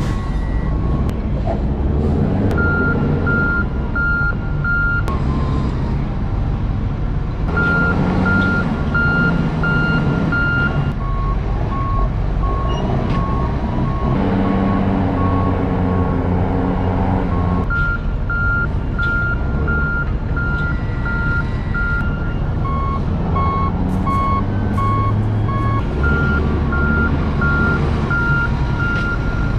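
Backup alarms on heavy forklifts beeping steadily at about two to three beeps a second, a higher-pitched alarm and a lower-pitched one taking turns, over the forklifts' engines running.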